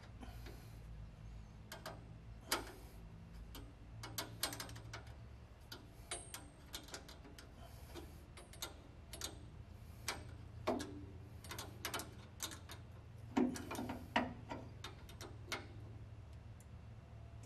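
Small wrench clicking against metal brake-line fittings and their bracket as they are tightened, in irregular sharp clicks with short pauses between them.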